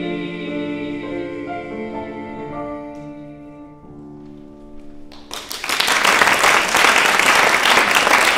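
Voices singing the held closing notes of an art song with piano accompaniment, the sung notes ending about three to four seconds in and the piano dying away. About five seconds in, applause breaks out and carries on as the loudest sound.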